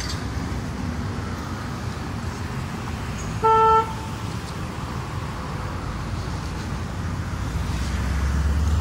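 Steady road traffic rumble, broken by one short car-horn honk about three and a half seconds in. Near the end a vehicle engine's low hum grows louder close by.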